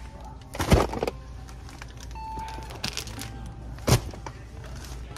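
Groceries being handled: two sharp knocks as items are picked up and set down, one just under a second in and one near four seconds in, with light rustling and crinkling of packaging between them and a short beep a little after two seconds.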